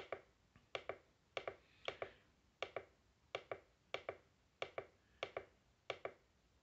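Small plastic push-button on a Capello CR-22 alarm clock radio pressed over and over, a short double click (press and release) about every two-thirds of a second, stepping the alarm hour forward.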